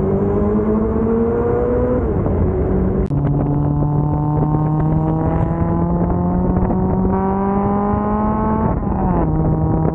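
Inline-four engine pulling under acceleration, its pitch climbing slowly through each gear, with upshifts dropping the pitch about two seconds in and again near the end.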